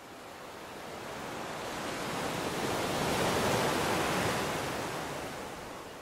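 Ocean surf: the rush of a breaking wave that swells up to a peak about midway and then fades away.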